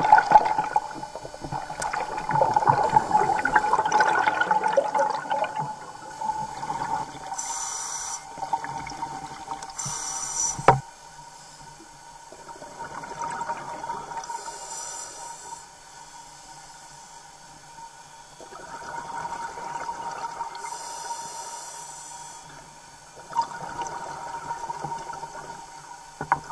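Underwater recording of a scuba diver breathing through a regulator: a bubbling exhale that swells and fades every five or six seconds, with short hissing inhales between them. A steady faint tone sounds throughout, and there is one sharp click about eleven seconds in.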